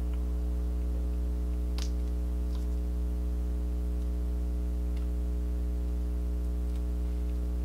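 Steady low electrical hum, with a few faint ticks as the plastic backing is peeled off a small silicone face patch.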